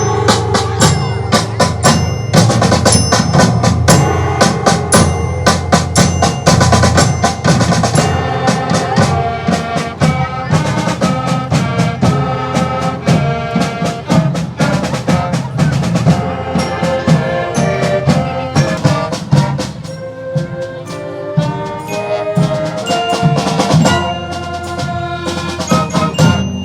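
Percussion ensemble playing a fast tune: rapid pitched mallet notes over steady drumming.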